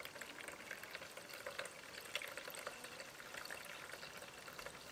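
Freshly made apple juice pouring through two stacked sieves into a container: a faint, steady trickle with scattered small drips.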